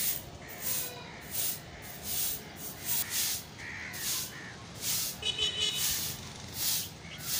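Short hand broom of dried stalks sweeping a concrete floor: a steady rhythm of brisk swishes, about one stroke every three-quarters of a second.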